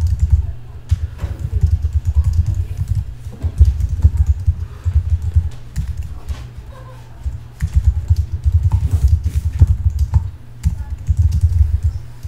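Fast typing on a computer keyboard, in bursts of rapid keystrokes with short pauses between them, each keystroke with a deep thump.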